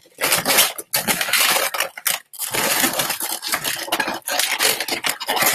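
Latex 260 modelling balloons rubbing and squeaking against each other as they are twisted into a pinch twist, in scratchy bursts with short breaks.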